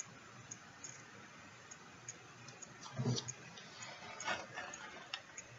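Quiet room tone with a faint steady low hum and scattered faint clicks and ticks. There is a soft thump about three seconds in and a brief rustle a second later.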